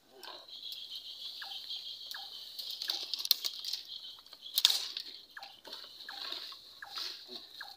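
A steady, high-pitched drone of insects from the surrounding brush, with scattered short falling chirps and a few sharp clicks or snaps, the loudest about four and a half seconds in.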